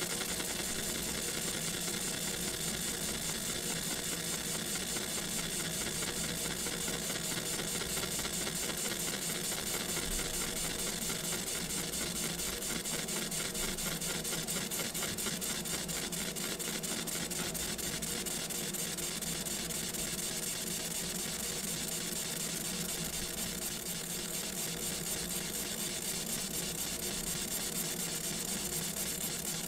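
Laser engraver marking a logo into a silver coin: a steady fan hum and whine with a fine, rapid, even buzz from the laser working the metal.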